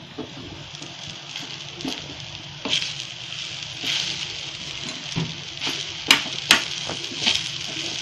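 Spatula stirring and scraping sabudana khichdi around a metal kadai over a light sizzle of frying. Sharp clinks of the spatula against the pan come now and then, loudest about six seconds in.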